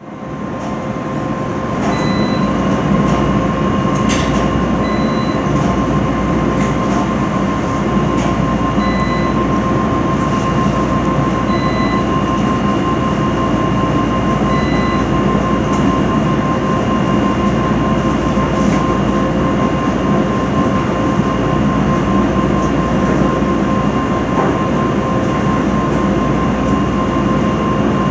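Commercial laundromat dryer running loudly: a steady rumble from the tumbling drum with a constant whine over it. A few short beeps sound faintly now and then.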